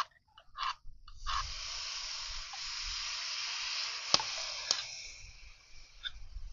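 Liquid hitting a hot pan of frying pork curry: a sudden loud sizzle that hisses steadily for about four seconds and then dies away. Two sharp clicks come near the end of the sizzle.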